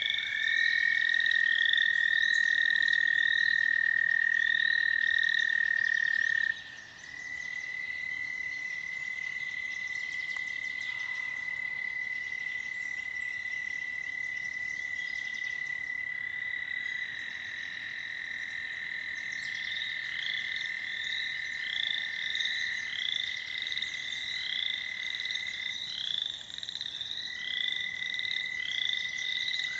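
A chorus of American toads trilling: long, steady, high trills several seconds each, one toad taking over as another stops, with two overlapping at slightly different pitches. Rows of short, quick, higher calls repeat above them.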